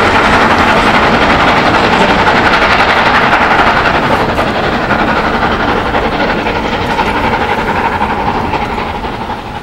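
Steam-hauled passenger train running away along the track, its coach wheels clattering on the rails, the sound slowly dying away and fading out near the end.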